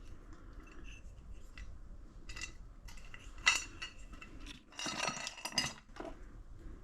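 Flathead screwdriver prying and scraping at the gasket between an air compressor pump's head and body, its steel clinking against the metal castings. There are a few sharp ringing strikes, the loudest about three and a half seconds in, and a close cluster of clinks around five seconds.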